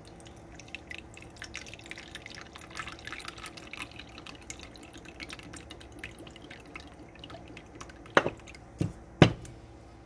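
Rice vinegar pouring in a thin stream from a bottle into a plastic measuring cup: a trickling, splashing run of small drips. Near the end come three sharp knocks, the last the loudest, as the bottle is set down on the counter.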